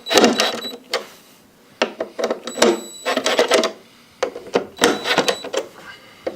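Metal clinks and rattles from a garbage disposal's sink-flange mounting assembly being tightened: runs of sharp clicks with short pauses between them.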